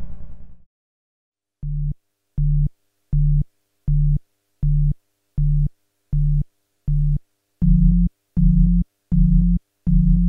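Synthesized low electronic tone pulsing on and off like a busy signal, about four short beeps every three seconds, growing louder about two-thirds of the way through. In the first second an earlier low pulsing sound fades out.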